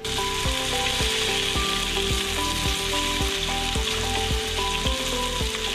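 Bacon strips sizzling in a nonstick frying pan as they are turned with plastic tongs, over background music with a steady beat.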